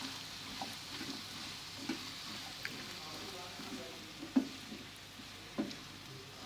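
Freshly sliced onions sizzling in hot oil in a non-stick pan over medium-high heat, just beginning to fry. A steady sizzle runs under a few soft knocks and scrapes as a spatula turns them over.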